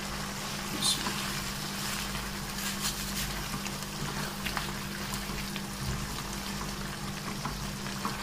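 Chicken simmering in a milk-based gravy in a karahi, bubbling and crackling with small pops as a silicone spatula stirs through it, over a steady low hum.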